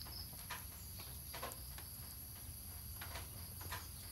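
A puppy chewing and mouthing a string, heard as a few faint, scattered soft clicks and rustles, over a steady high-pitched hum.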